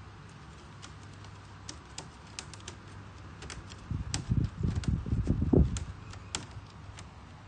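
Cats shifting against a plastic laundry basket and a hard floor: scattered light clicks and taps, with a run of soft low thumps about four to six seconds in.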